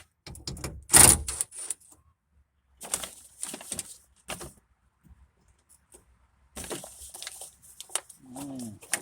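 Hands at work inside a truck door: a loud knock about a second in, then short scratchy rips and clicks that fit tape being pulled off a roll and pressed onto the window glass to hold it up, and a short squeak falling in pitch near the end.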